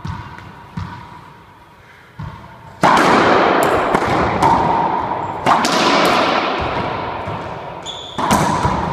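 Racquetball rally on an enclosed court: a few light bounces of the ball on the floor, then three hard ball strikes about two and a half seconds apart. Each strike is a sharp crack with a long echo off the court walls, and sneakers squeak on the hardwood floor between them.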